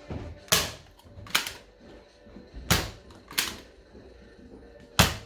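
Five sharp clacks from a Nerf foam-dart blaster being worked and fired, coming as two pairs and then a single.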